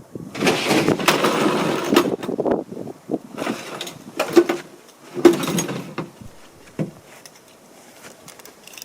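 Diving gear being picked up and carried: a long rustle of heavy suit material, then a few knocks and bumps, quieter near the end.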